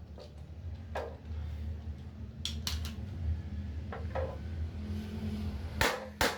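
Scattered metal clinks and knocks from tools and parts being handled, about nine of them with the two loudest near the end, over a steady low hum.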